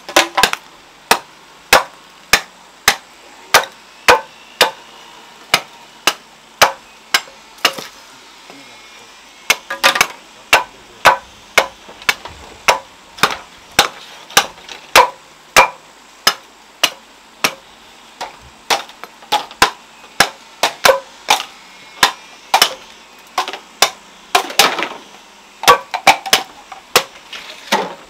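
A long run of sharp chopping blows, roughly two a second, with a short pause about eight seconds in.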